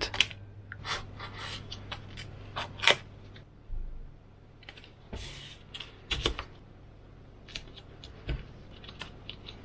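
Scattered clicks, taps and short scrapes of hands handling EPP foam pieces, a hobby knife and a steel ruler on a wooden desk.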